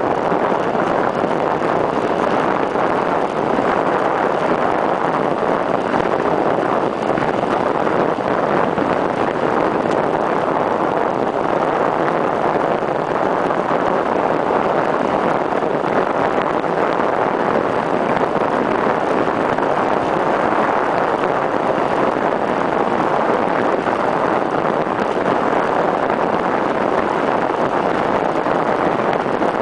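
Steady rush of wind buffeting a stem-mounted camera's microphone as a bicycle descends at speed, loud and unbroken.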